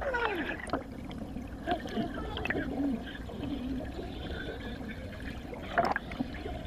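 Water gurgling and trickling with air bubbles inside a water-filled car cabin, with a brief louder burst about six seconds in.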